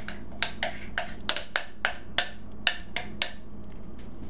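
A metal utensil tapping and scraping against a stoneware mixing bowl and a metal loaf pan as soft bread dough is scraped out: about a dozen sharp clicks, roughly three a second, stopping about three seconds in.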